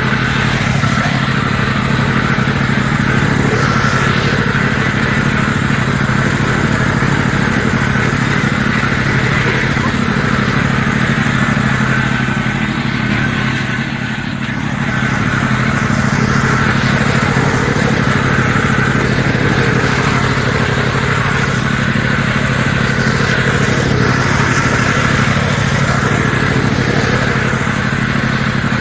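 Riding lawnmower's engine running steadily while the mower is driven, dipping briefly in loudness about halfway through.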